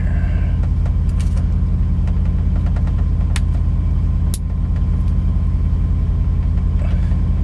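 Heavy truck's diesel engine idling steadily, heard inside the cab as an even low rumble, with a faint steady high tone and a few sharp small clicks from handling wiring and tools.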